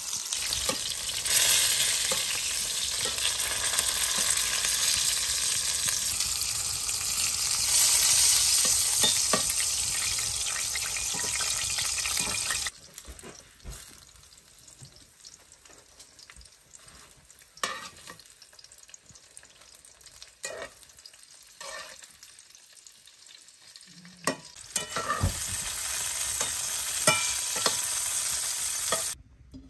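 Food sizzling and frying in hot oil in a cooking pot, with stirring. About halfway through the sizzling cuts off to a quiet stretch with scattered clicks and knocks, then loud sizzling returns near the end and stops abruptly.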